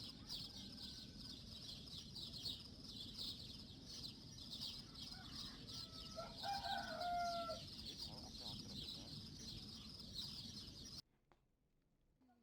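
A rooster crows once, about six seconds in, over a steady high, rapidly pulsing chirring. The sound cuts out to near silence about eleven seconds in.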